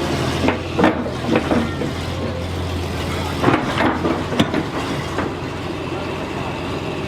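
Landsverk L58 cable backhoe working: its engine runs steadily underneath, easing a little about three seconds in, while a handful of short, sharp metallic squeals rise over it in two clusters.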